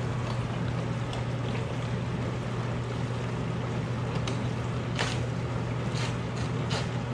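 Dishwasher running its wash cycle: a steady motor hum with water swishing and spraying inside the tub. A few light clicks come near the end.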